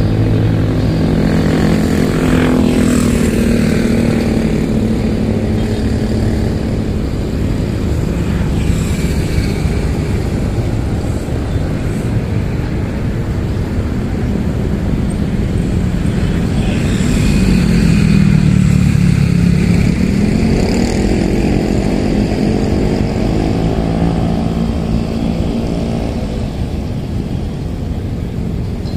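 Engines running, loud and steady over a low rumble, their pitch shifting around a couple of seconds in and dipping then rising again a little past halfway.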